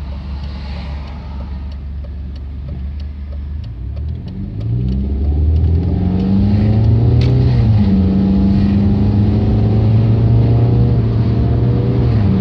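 BMW E46 316i's 1.9-litre four-cylinder engine idling steadily at a standstill, heard from inside the cabin. About four seconds in it pulls away: the engine pitch rises, drops sharply with an automatic-gearbox upshift, then settles into a steady, louder drone.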